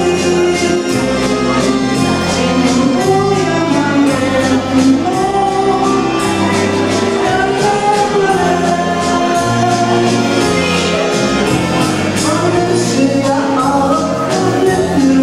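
A woman singing a waltz into a microphone over a karaoke backing track, with a steady bass line and a regular beat.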